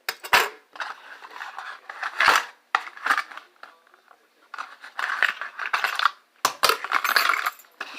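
Metal handcuffs being handled: irregular clinking and scraping, with a few sharp knocks.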